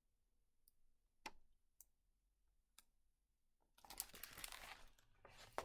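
A few faint clicks, then, about four seconds in, rustling of a large hardcover picture book's paper pages and cover as it is handled and turned around.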